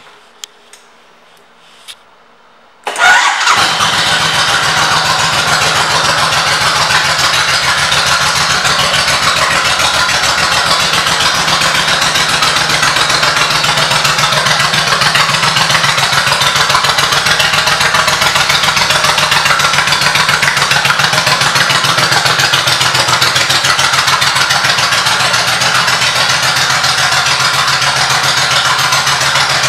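A few clicks, then the 2004 Suzuki Intruder 1500 LC's liquid-cooled V-twin, fitted with Cobra aftermarket pipes, starts about three seconds in. It settles into a steady, loud idle with an even firing pulse.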